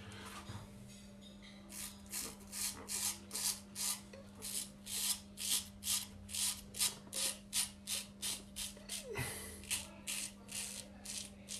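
Hand-made straight razor scraping stubble off a lathered cheek in short strokes, about three a second, during the against-the-grain pass.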